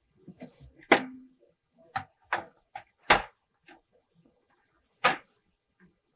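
A series of about six sharp knocks and clacks from hard objects being handled and set down, the loudest about a second in.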